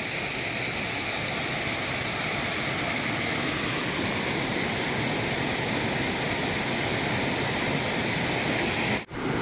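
Rushing water of a small waterfall cascading over rocks, a steady, even hiss that cuts out abruptly for a moment near the end.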